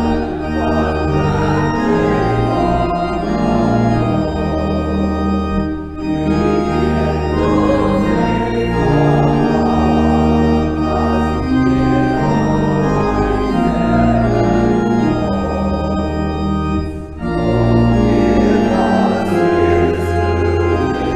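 Church organ playing sustained chords, with two short breaks between phrases.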